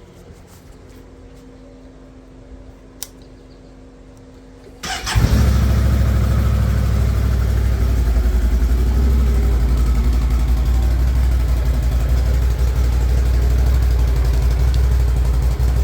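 Can-Am Outlander Max XT 650 ATV's V-twin engine, still on its stock exhaust, started about five seconds in: a brief crank catches at once, and the engine then idles steadily with a low, even pulse. A single short click comes just before, about three seconds in.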